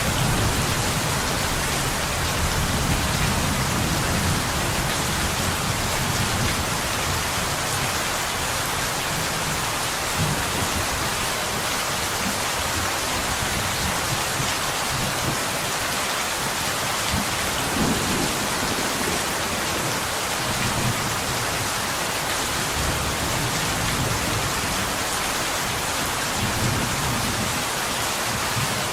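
Steady rain falling on a window, a dense even hiss, with soft low rumbles swelling and fading every few seconds.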